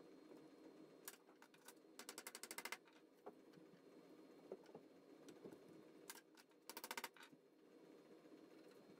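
Faint, rapid light clicking of chicken wire being pulled and pressed over a wooden frame: two short runs of quick ticks, about two seconds in and again near seven seconds, with a few single clicks.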